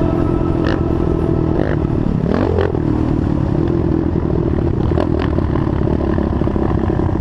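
Sport quad's engine running under throttle, recorded onboard, with a brief rev about two and a half seconds in. A few sharp knocks come from the chassis as it crosses bumps on the dirt track.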